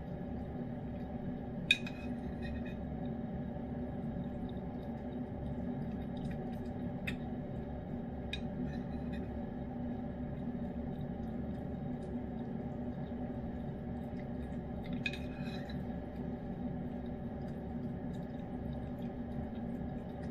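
Steady low hum with a few light clinks of a metal spoon against a ceramic bowl as a cat eats from the spoon; the loudest clink comes about two seconds in, another near the end.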